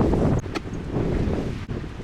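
Wind buffeting the microphone in uneven gusts, with a couple of short ticks about half a second in.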